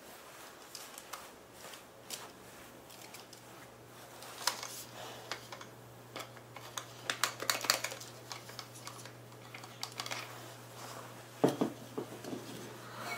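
Plastic clicks and rattles from a quick-draw camera holster clip and its mounted camera being handled, scattered throughout and busiest around the middle, with a sharp click near the end.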